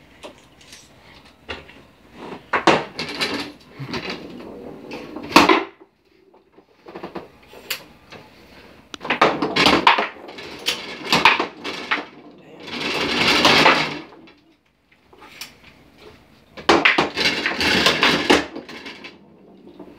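Foosball table in play: plastic figures striking the ball, rods sliding and spinning, and the ball knocking against the table's walls, in bursts of rapid clacks and rattles with short pauses between. A longer continuous rattle comes about two-thirds of the way through.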